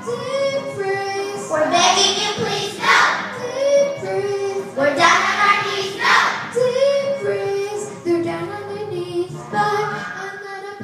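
Young children singing a song together, with long held notes.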